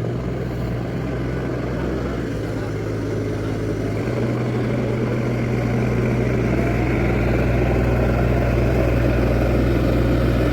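Escorts backhoe loader's diesel engine running steadily with a deep, even hum. Its note steps up slightly about four seconds in and it grows a little louder toward the end.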